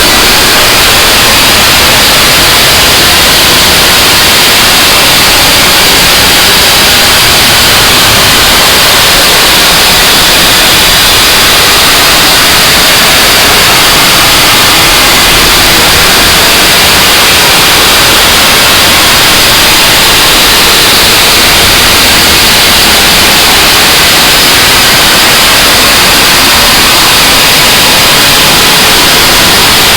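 Harsh noise wall music: a dense, unchanging wall of loud static-like hiss, heaviest in the upper range, with no rhythm or melody.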